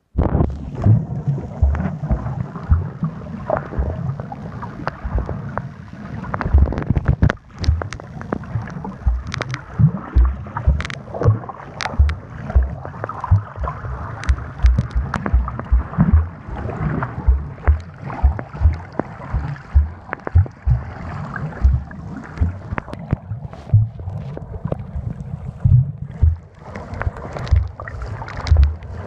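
Underwater sound picked up by a submerged phone: irregular low thumps several times a second and gurgling as water moves against the phone, with scattered sharp clicks.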